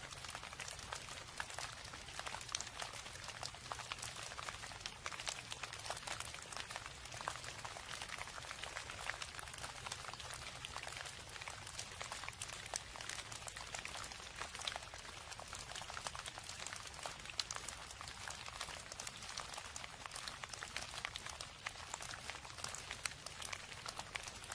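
Steady rain falling: a dense, even patter of countless small drops, with a low rumble underneath.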